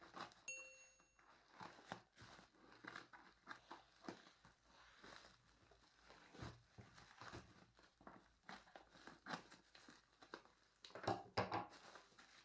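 Scissors snipping through a parcel's plastic wrapping and packing tape, and the plastic crinkling as it is pulled and turned: faint, irregular rustles and snips, with a louder flurry of crinkling near the end.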